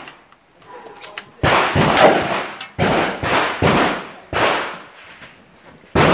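Six shots from a Beretta 1301 semi-automatic shotgun at a steady pace, about one every three quarters of a second, with a longer gap before the last. Each shot trails off in a short echo.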